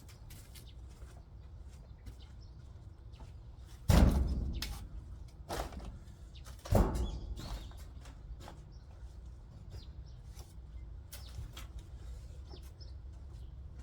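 Two heavy thuds, about three seconds apart, each trailing off over about a second, with faint scattered clicks around them.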